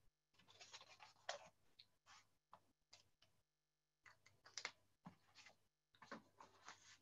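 Near silence, broken by faint, scattered scratches and clicks every second or so.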